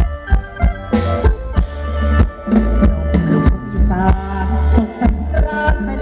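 Thai ramwong folk dance music played by a band: a steady drum beat of about three strokes a second over a deep bass, with sustained melody notes.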